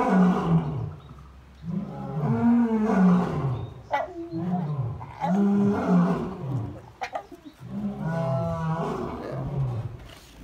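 A young lion cub, about three and a half months old, calling again and again. Each call is a drawn-out cry about a second long that falls in pitch, and they come every two to three seconds.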